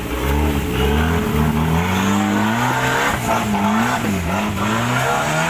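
Off-road 4x4's engine revving under load. Its pitch climbs over the first two seconds, dips twice in the middle and rises again near the end.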